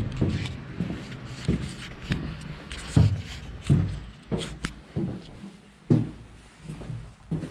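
Footsteps walking at a steady pace on a steel ship's deck, about one step every 0.7 seconds, with a faint scuffing between steps.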